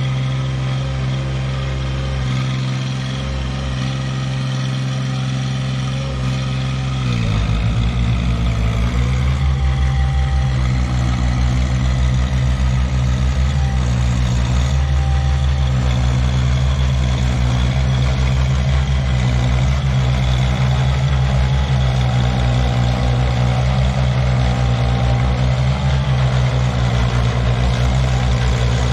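Construction machine's diesel engine running steadily. About seven seconds in its pitch dips and a fast, even low pulsing sets in and holds.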